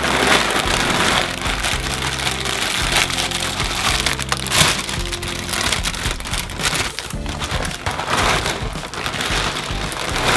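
Background music over the crinkling of a clear plastic bag being handled and opened. Near the end, small hard cereal pieces rattle out of the bag and scatter across a table.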